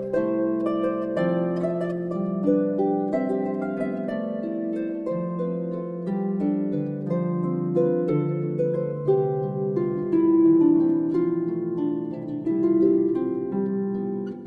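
Instrumental background music of plucked strings, likely a harp: a steady flow of notes, each struck sharply and left to ring, with several notes sounding together.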